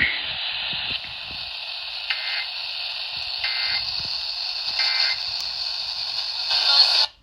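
Radio static hiss from a weather radio receiver between broadcast messages, with a faint regular pulsing about every second and a half. It cuts off suddenly near the end.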